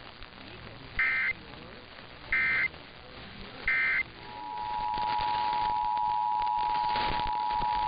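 Emergency Alert System test: three short, loud bursts of SAME header data, about a second and a half apart, then a little after four seconds in the steady two-tone EAS attention signal (853 and 960 Hz together) starts and holds.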